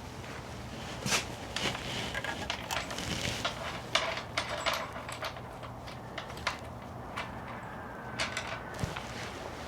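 Irregular metallic clicks and light knocks of hand tools and parts being handled during motorcycle rear-wheel work, over a faint steady low hum.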